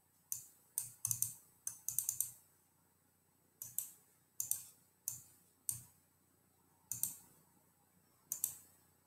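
Computer keyboard and mouse clicking in irregular strokes: a few quick runs of two or three clicks early, then single clicks every half second to a second and a half.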